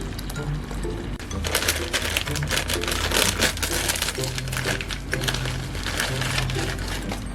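Background music with repeating low notes; from about a second and a half in, dense crinkling and clicking plays over it.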